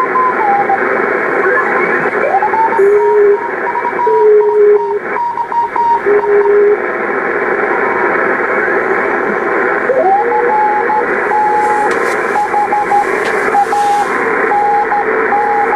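Icom IC-745 HF transceiver's receiver audio while its VFO is tuned across the 40-metre band: a steady band-noise hiss, with whistling tones that slide into pitch as the dial moves and then key on and off in short and long pieces, like Morse code signals.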